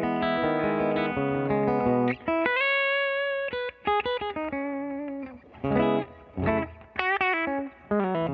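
Electric guitar played through a Universal Audio UAFX 1176 Studio Compressor pedal set to sustain mode. It plays ringing chords, then single notes held long, then short, separated notes with quiet gaps in the last few seconds.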